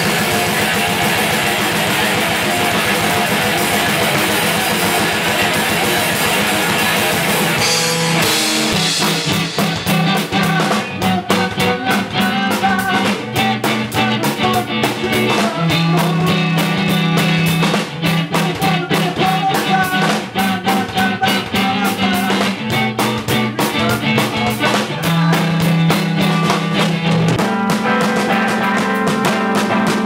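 Rock music on electric guitar. About eight seconds in, a fast drum-kit beat and bass come in under the guitars.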